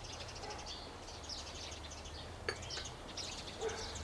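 Small songbirds chirping and twittering over a low steady hum, with one short click about two and a half seconds in.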